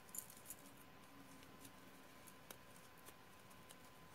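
Near silence with a few faint clicks and rustles of a crochet hook working thick macrame cord.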